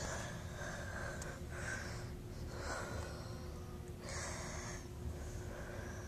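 52-inch Hampton Bay ceiling fan running just after being switched on by its pull chain, its motor giving a steady low hum as the blades come up to speed. Soft airy puffs come about once a second over the hum.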